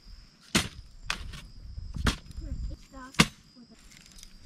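Campfire crackling: a handful of sharp, irregular pops from burning wood, the loudest about three seconds in. Insects trill steadily underneath.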